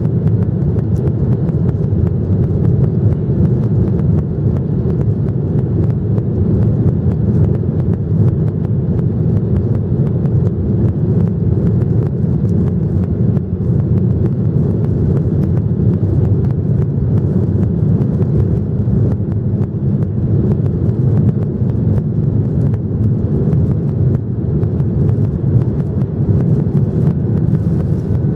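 Boeing 737-800 jet airliner running steadily: an unbroken low rumble of its CFM56 engines and the airflow, with a faint steady hum on top.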